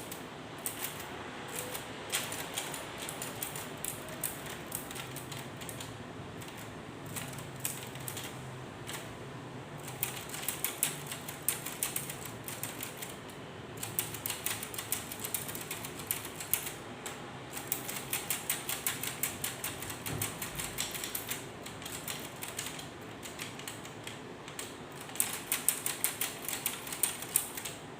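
K Clover 815 manual typewriter clacking as its keys are struck in quick runs of several strokes a second, with short pauses between the runs.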